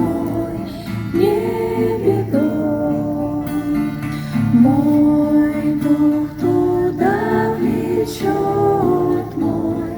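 A group of voices singing a slow Christian hymn in long held notes, with acoustic guitar strumming underneath.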